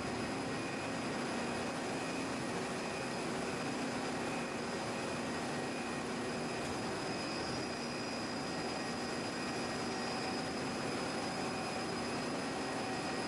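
Steady machine-shop background noise: a constant even rush with a faint high steady tone, no distinct events.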